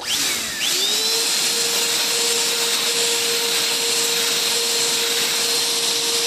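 Emerson vacuum cleaner's motor switched on. It spins up to speed within the first second and runs with a steady whine and rushing air, then starts to wind down at the very end.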